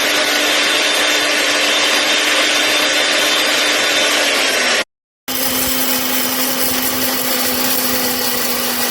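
Greatrue 2000 W high-speed electric grain mill running with a loud, steady motor whine. About five seconds in it cuts out for half a second, then runs again at a slightly lower pitch.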